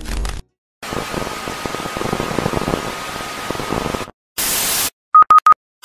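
Television static sound effect: hiss and crackle with a steady high test tone underneath, which cuts off abruptly, followed by a short burst of loud static and three quick beeps at the same pitch.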